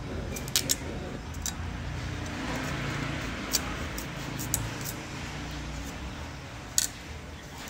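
Cleaver shaving the rind off a pumpkin on a wooden cutting board: a handful of short, sharp cuts and knocks of the blade, spaced irregularly.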